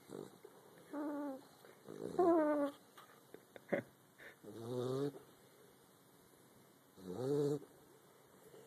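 A sleeping pet snoring and moaning: four drawn-out, wavering sleep noises of under a second each, with a short click between the second and third.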